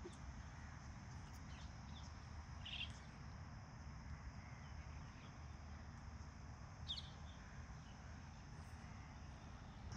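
Faint background ambience with a steady low rumble, broken by short bird chirps, one about three seconds in and one about seven seconds in.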